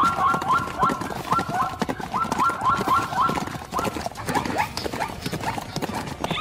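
An animal giving runs of short, high, repeated calls, about four to five a second, with thuds underneath.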